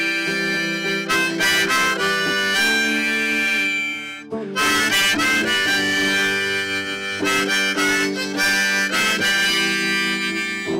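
Harmonica playing an instrumental break in a song, with notes and chords held steady for a second or more and a short drop about four seconds in.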